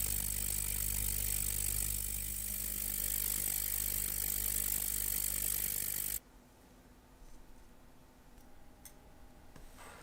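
A machine running with a steady low hum and hiss, switched off abruptly about six seconds in; after that only a few faint small clicks.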